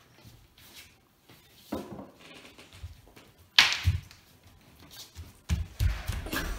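Thumps and scuffling of two children moving about and grappling on a wooden floor, with one short, loud hissing burst about three and a half seconds in and a cluster of low bumps near the end.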